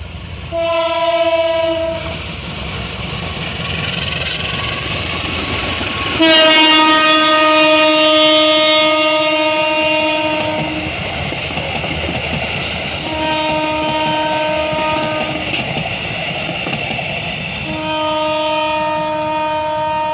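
Diesel-electric locomotive sounding its horn four times as it hauls a passenger train past: a short blast, a long one of about four seconds, then two shorter ones. Under the horn the rails clatter and rumble as the carriages go by.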